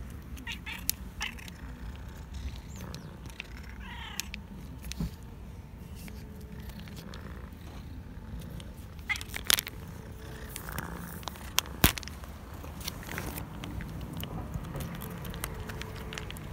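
Hungry stray tabby cat giving one short meow about four seconds in, begging for food. Scattered sharp clicks sound around it, the loudest about nine and a half and twelve seconds in.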